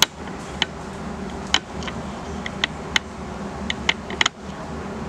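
Scattered sharp clicks and light taps, about a dozen at uneven intervals, over a steady low hum.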